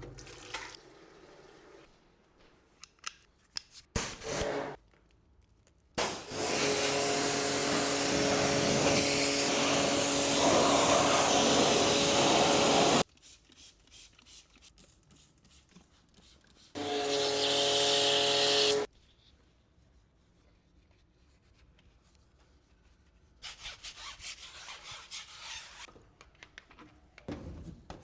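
A motorized cleaning machine switches on twice, first for about seven seconds and later for about two, each time a loud hiss over a steady motor hum. Between the bursts there are quieter rubbing and scrubbing sounds.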